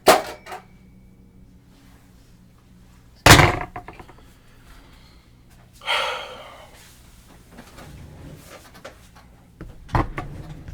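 A few loud bangs and knocks: a sharp one at the start, the loudest about three seconds in, a rustling noise near the six-second mark, and a short cluster of knocks near the end.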